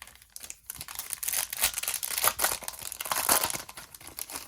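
Plastic wrapper of a pack of baseball cards crinkling and tearing as it is handled and opened by hand, a dense crackle that swells in the middle and eases off near the end.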